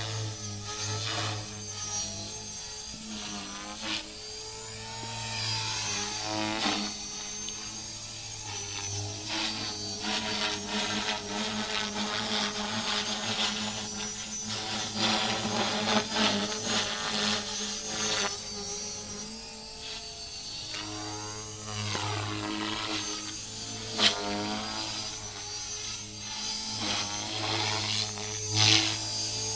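Electric RC helicopter (Align T-Rex 450L Dominator) in flight: its motor and rotor whine runs throughout, rising and falling in pitch again and again as it manoeuvres. A sharp tick sounds about three-quarters of the way through.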